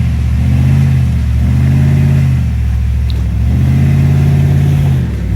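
Truck engine revving hard under load in three surges, the pitch rising and falling each time, as the truck is driven up a rock obstacle and its wheels spin.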